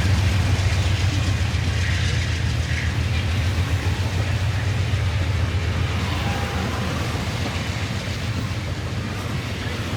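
Eastbound Amtrak Southwest Chief passenger train rolling by with a steady low rumble and some mechanical rattle of the cars, slowly fading as it moves away.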